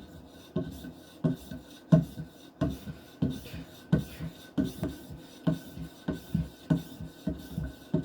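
Knife blade drawn over and over along a hard polymer strop charged with 1-micron diamond emulsion: short scraping strokes at about two a second, with no break.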